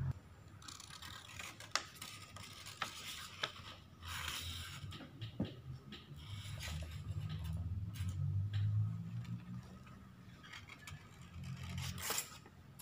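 Paper instruction leaflet being unfolded and handled: soft rustling and crinkling with scattered small ticks.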